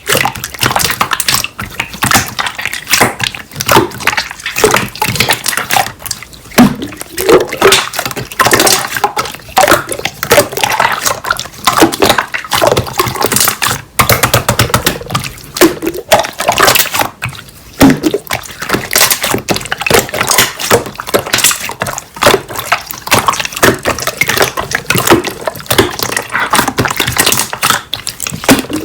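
Hands squishing, pressing and stretching slime: a dense, irregular run of wet clicks, crackles and small pops.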